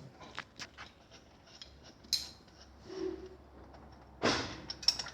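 Metal tools and engine parts clinking and knocking against each other as an engine is taken apart, with a short, louder clatter about four seconds in.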